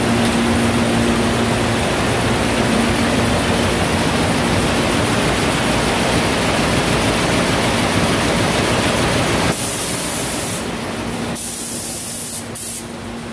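Cigarette-making and packing machinery running: a loud, steady mechanical rush with a low hum underneath. Near the end the noise turns uneven, with stretches of high hiss cutting in and out and a brief drop in loudness.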